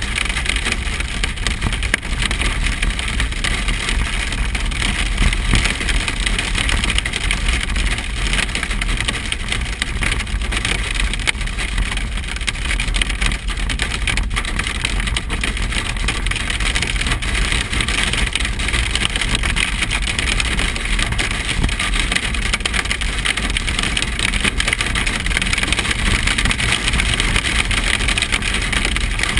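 Hail and rain pelting the car, heard from inside the cabin as a dense, steady patter of small hits over a low rumble from the moving vehicle.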